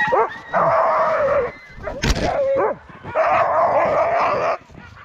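Harnessed Alaskan husky sled dogs barking and yelping, excited to run: two long drawn-out barks with short yelps and a sharp knock between them.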